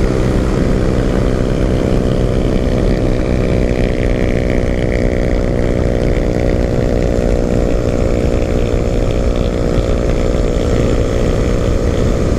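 A 150 cc single-cylinder motorcycle engine running hard at steady, high revs, pushed toward its top speed, with wind noise on the microphone.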